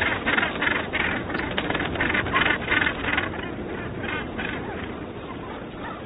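Northern gannets calling: a rapid run of calls, about three a second, that stops about three seconds in, followed by two more about a second later.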